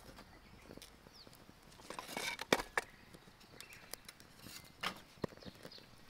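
Thin kindling sticks crackling and snapping as they catch fire in a small folding steel fire stove: irregular sharp cracks and pops, busiest and loudest about two seconds in.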